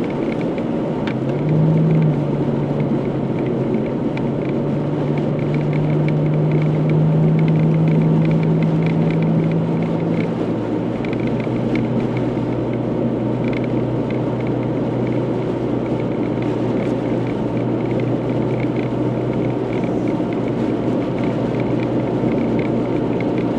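Car engine running under way with a steady rumble of tyre and wind noise, heard from inside the car. The engine note rises a little about two seconds in, holds higher for a few seconds, then settles lower about ten seconds in.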